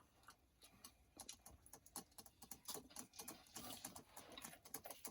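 Near silence broken by faint, irregular light clicks and taps of dishes and utensils as thukpa is served and eaten.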